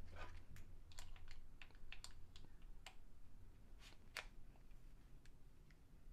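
Light clicks and taps of hands handling the plastic body of a PepperBall Lifelite Mobile launcher, scattered and irregular, with the sharpest click about four seconds in.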